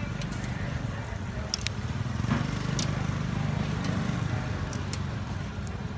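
A steady low rumble, swelling in the middle, with a few sharp clicks of metal tongs against the bars of a charcoal grill as pork slices are turned.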